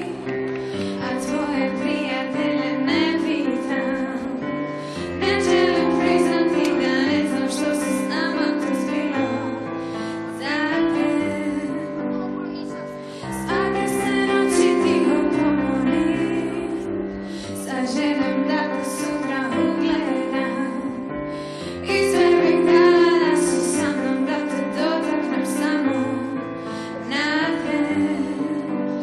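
A teenage girl singing solo into a microphone, with instrumental accompaniment underneath.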